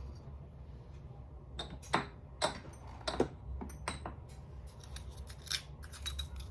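Scattered sharp clicks and light taps of kitchen utensils and containers as chili pepper is added to a sauce, ending in a quick run of small clicks.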